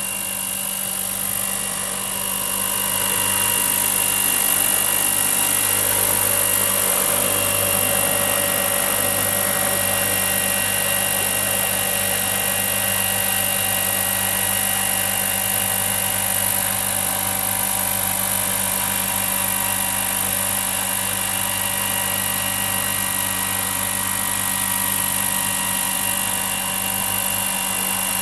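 Airwolf-style scale RC model helicopter hovering close by, giving a steady whine of several pitches from its drive and rotor. It grows louder about three seconds in and then holds steady.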